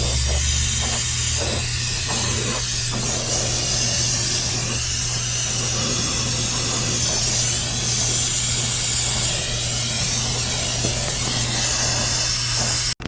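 Steady, loud hiss of gas rushing out under pressure, with a low steady hum beneath; it cuts off suddenly near the end.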